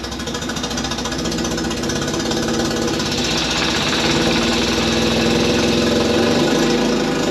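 Fiat X1/9's four-cylinder engine running steadily in gear, driving the jacked-up rear hub and brake rotor through the freshly replaced clutch. A higher hiss grows in about three seconds in and the sound gets a little louder.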